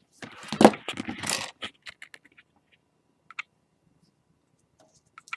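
Laptop screen parts being handled as the old display panel comes out: a scraping rustle of plastic for about a second, then a few light clicks and taps.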